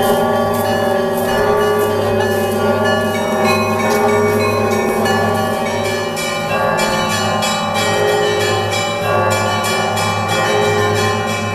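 Orthodox monastery church bells pealing: many bells struck together, deep bells humming steadily beneath a dense ringing of smaller bells. The smaller bells strike more quickly and densely from about halfway through.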